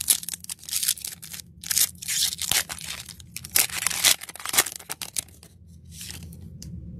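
A trading card pack's wrapper being torn open and crinkled: a quick run of tearing and rustling noises that dies down after about five seconds.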